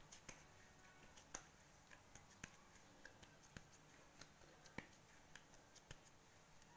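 Near silence with faint, irregular small clicks from fingers pressing and patting soft stuffed dough into a flat disc by hand.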